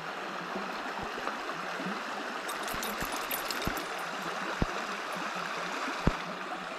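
Shallow river water running steadily over stones, with a few faint knocks scattered through it.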